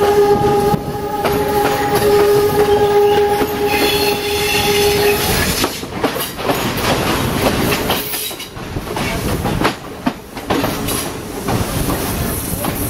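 Passenger train running along the line, heard from on board: steady rattle and clatter of the wheels on the rails, with the train's horn sounding one long steady note that stops about five seconds in.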